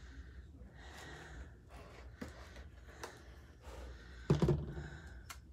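Utility knife cutting through packing tape and cardboard on a shipping box, with faint scrapes and a few clicks, and a louder thump about four seconds in as the box is handled.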